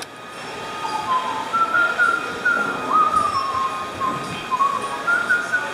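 A person whistling a tune: a single line of short, stepped notes with a quick upward slide partway through.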